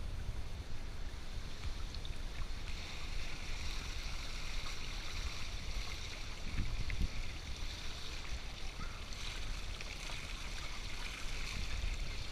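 Steady hiss of moving pool water with a low wind rumble on the microphone. The hiss grows fuller about two seconds in.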